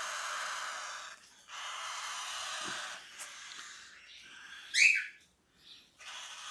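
Cockatiel chicks hissing in long breathy spells, with one short, loud rising squeak just before five seconds in.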